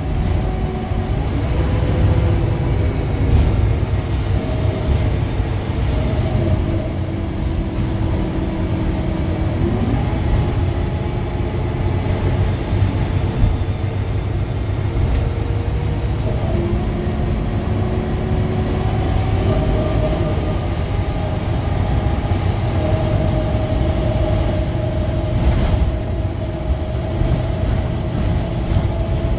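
Scania K310UA articulated bus heard from inside the cabin while under way: a steady low rumble with an engine and transmission whine that rises and falls with speed, stepping in pitch a few times.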